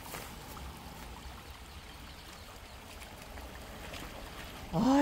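Shallow creek trickling steadily over rocks. Near the end a man's voice cries out "aigo".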